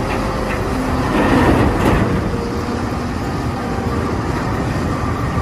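Heavy diesel engine of a Caterpillar 992G wheel loader running under load as it tips a bucket of earth into a dump truck. A louder rush of noise comes about a second and a half in.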